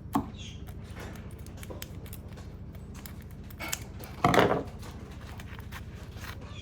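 Handling noise from small handmade craft items being picked up: a soft click just after the start and a short, louder rustle about four seconds in, over a steady low hum.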